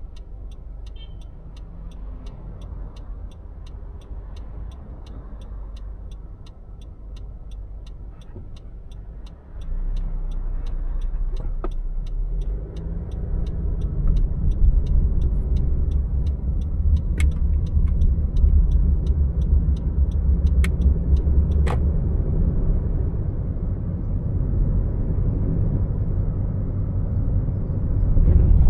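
Car driving in city traffic: a low engine and road rumble, with a regular light ticking through the first half. About a third of the way in, the rumble jumps louder and keeps building as the car gathers speed. A few sharp clicks come near the middle.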